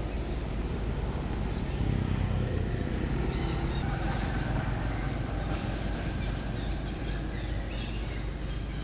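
Outdoor ambience: a steady low rumble that swells slightly about two seconds in, with faint high chirps in the middle.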